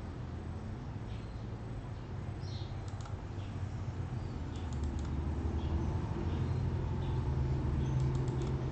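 Computer mouse clicking in a few quick clusters of double-clicks, about three seconds in, again near five seconds and again near the end, over a low steady hum.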